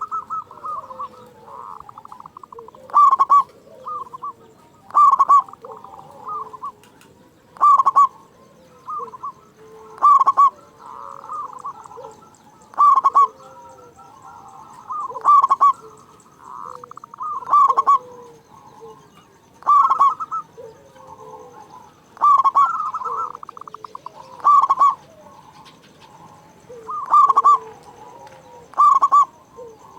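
Zebra dove (perkutut) cooing over and over: a loud call about every two to three seconds, with softer rolling notes between.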